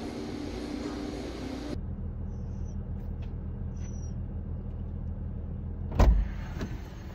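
Low steady rumble of a car idling, heard from inside the cabin, with a sudden loud thump about six seconds in.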